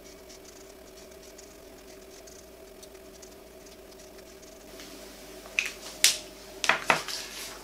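Pen scratching faintly on paper as it writes, then several short sharp clicks near the end as the pen is capped, over a steady low hum.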